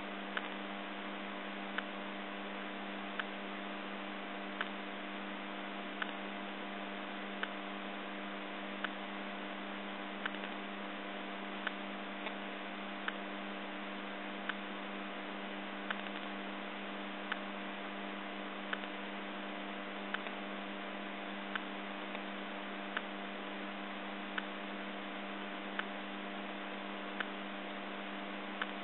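Roomba robot vacuum running with a steady motor hum, with a short tick about every second and a half.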